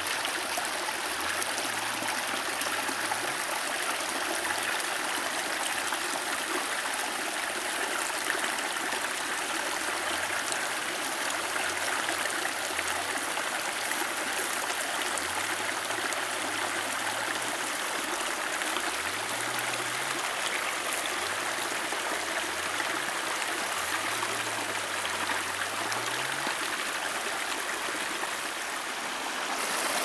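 Small rocky forest creek running shallow over stones, a steady rush and trickle of water.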